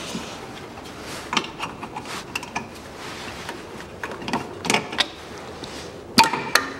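Scattered plastic clicks, knocks and rubbing from gloved hands working at a car's windscreen-washer reservoir and the hoses around it, with the sharpest click near the end.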